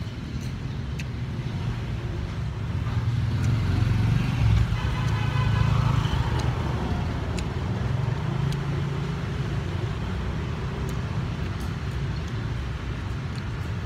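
Steady street traffic with a low engine rumble; a vehicle passes close about four to six seconds in, its whine falling in pitch as it goes by.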